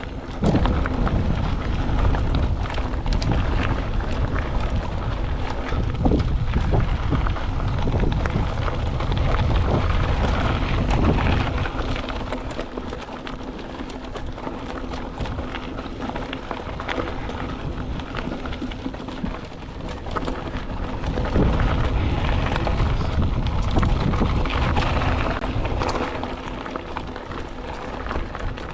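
Mountain bike rolling fast down dirt singletrack: a heavy wind rumble on the microphone, with tyre noise and scattered clicks and rattles over the ground. It is loudest through the first twelve seconds and again a little after twenty.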